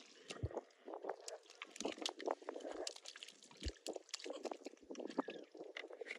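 Hands squelching and sloshing through thick wet mud and shallow muddy water while groping for catfish, with irregular sucking, splashy pops and clicks.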